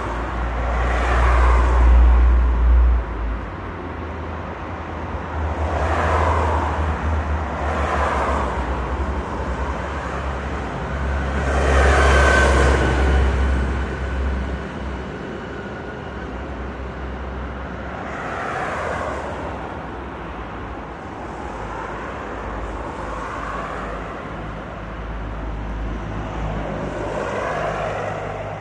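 Busy street traffic: vehicles passing one after another over a constant low engine rumble, each pass swelling and fading, the loudest about twelve seconds in.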